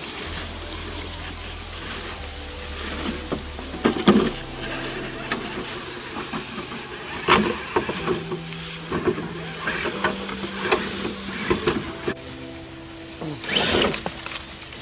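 Electric motor and gears of an RC rock-crawler truck whining in stops and starts, the pitch stepping up and down with the throttle as it climbs over rocks. Scattered crunches of dry leaves and knocks of the tyres on stone are mixed in, the loudest a little after the start, about halfway through and near the end.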